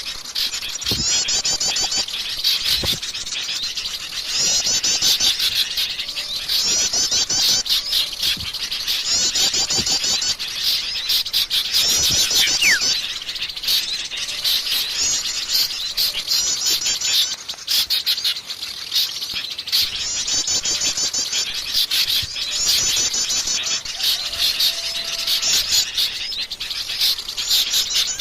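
Wild forest birds calling together in a dense chorus of chirps, with a high, rapid trill repeating about every two seconds and a single short falling whistle near the middle.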